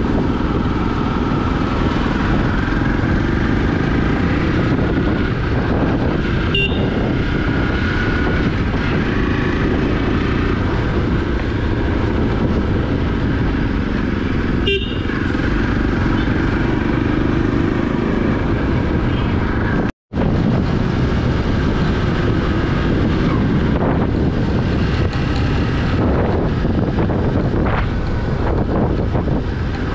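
Motorcycle engine running under way with steady road and wind rumble, and brief horn toots a couple of times.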